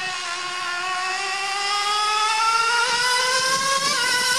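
Small nitro engine of a 1/8-scale Serpent F180 RC on-road car running at full throttle. Its high-pitched whine rises steadily in pitch and grows louder as the car accelerates toward the listener, with a slight dip in pitch about four seconds in. The engine is set a bit rich.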